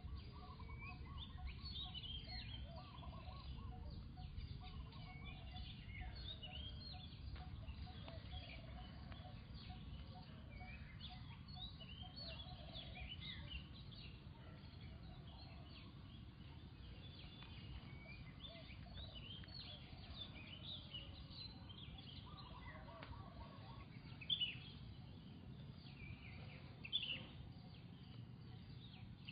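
Many short, high chirping animal calls over a steady low rumble, with two brief louder sounds near the end.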